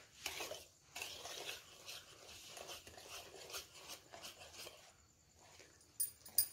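Wire whisk stirring thick semolina and mango cake batter in a plastic bowl: soft, repeated scraping strokes, two or three a second. Near the end, a few short, sharp, high-pitched squeaks begin.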